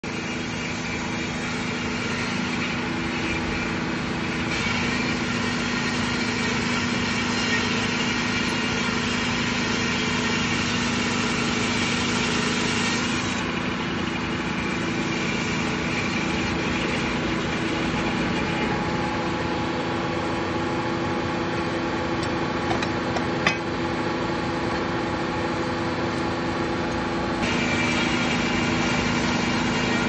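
Sawmill head saw running and cutting along a large log on the carriage, squaring off a side, over a steady machine drone. The higher, brighter part of the sound comes and goes a few times as the cut goes on, with one sharp tick about two-thirds of the way through.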